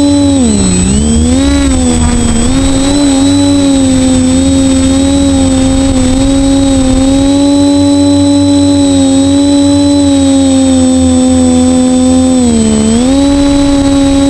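Quadcopter's worn 2208-17 brushless motors and propellers whining at a steady pitch, dropping in pitch briefly about a second in and again near the end as the throttle is eased off.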